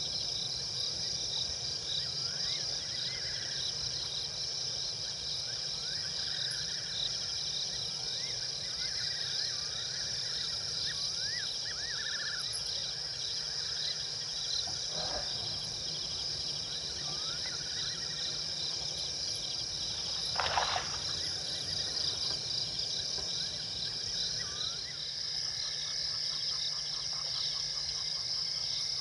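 Night insect chorus: crickets trilling steadily at a high pitch, with scattered short rising chirps from other animals and a brief rustle-like noise about twenty seconds in.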